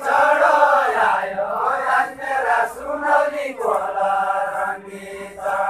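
A group of men singing a Deuda folk verse together in unison, a chant-like line of long held notes with slow pitch bends, breaking briefly between phrases.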